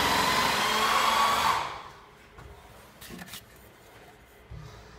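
A carpenter's power tool running loudly, a steady motor whine that rises a little in pitch, then winds down and stops about a second and a half in. After that only a few faint knocks.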